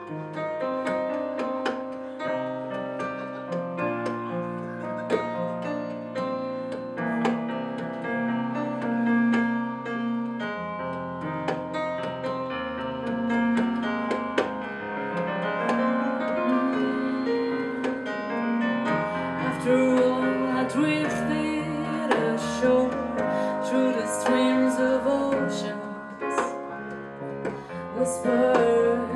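Instrumental passage of a small live band: a stage keyboard playing piano chords and melody over low bass notes, with light drum and cymbal hits that grow busier in the second half.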